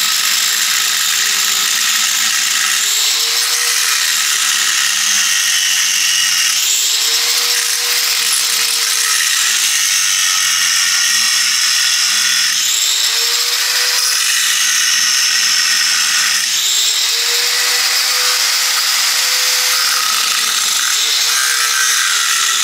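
Angle grinder cutting through a rusted, seized brake rotor on its hub: a loud, continuous hissing grind, the motor's pitch rising and falling several times as the disc bites into the metal.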